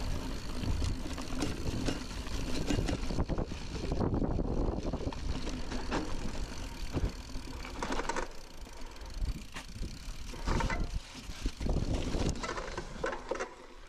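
Mountain bike being ridden off-road: a steady rumble of tyres and wind on the microphone, with the chain and frame rattling and clicking over bumps, easing off near the end.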